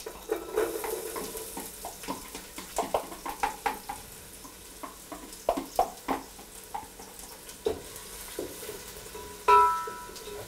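Chopped red onions dropping into hot vegetable oil in an aluminium saucepan and sizzling, with many small knocks as the pieces land and a wooden spoon begins to stir them. A short ringing knock near the end is the loudest sound.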